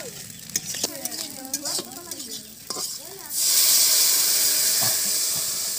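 Fingers stirring a yellow spice mix in a small steel bowl, with light clicks against the metal; about three seconds in, the mix is poured into hot oil in a wok and breaks into a sudden loud sizzle that slowly dies down.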